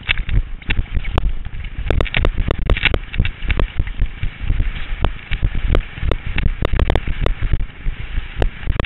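Skis scraping and chattering over choppy, chopped-up snow, heard through a helmet-mounted GoPro Hero, with many irregular sharp knocks over a continuous low rumble of wind on the microphone.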